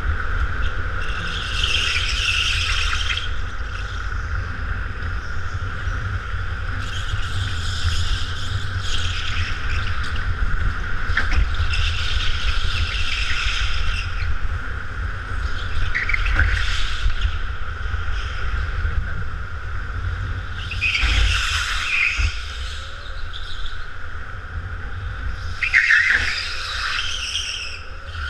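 Kart running steadily with a constant whine, its tyres squealing through the corners in repeated bursts of a second or two, about seven times.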